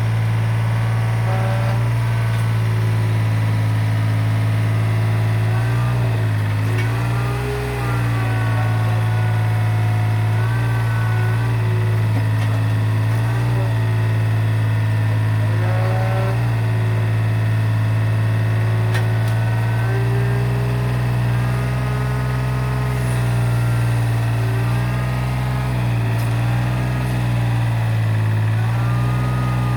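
Mitsubishi MM30 mini excavator's diesel engine running steadily under hydraulic load while lifting an overweight load, its note sagging and wavering several times as it is loaded, with a higher whine that bends up and down as the controls are worked.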